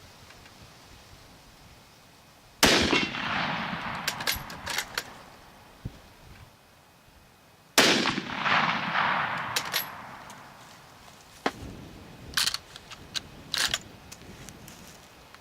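Two shots from a Gewehr 98 Mauser bolt-action rifle in 8x57mm, about five seconds apart, each echoing away over a couple of seconds. Sharp metallic clacks after each shot are the bolt being worked to chamber the next round.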